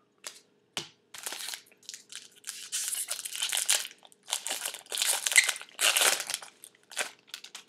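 Trading-card pack wrapper being torn open and handled: a run of rustling, tearing bursts with sharp clicks, loudest a little past the middle.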